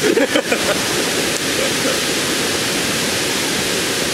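Steady rushing noise of running water, even and unbroken, with a few spoken words at the very start.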